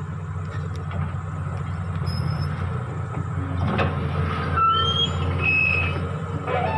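Doosan crawler excavator's diesel engine running steadily under hydraulic load as the boom swings and the arm reaches out, with a few short high squeals a little past the middle.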